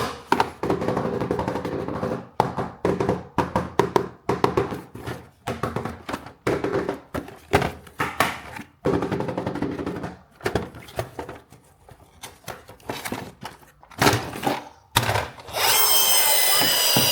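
Plastic toy vehicle and its packaging being handled: irregular knocks, clicks and rustles. About fifteen seconds in, a steady high whirring with several tones starts and continues.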